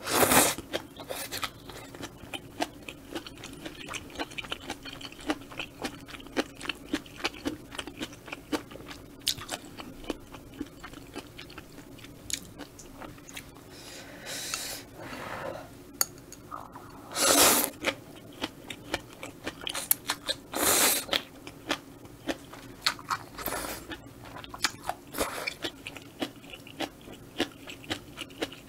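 Close-miked chewing and slurping of spicy stir-fried squid and udon noodles: a steady run of small wet mouth clicks, broken by several louder slurps, the first right at the start.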